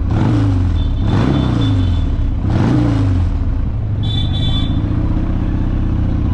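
Motorcycle engines revving up and down several times, with a short high-pitched horn toot about four seconds in.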